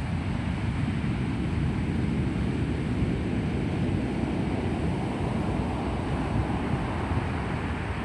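Heavy typhoon surf breaking and washing up a gravel beach: a steady, deep rumble of churning water with no single crash standing out. Wind buffets the microphone.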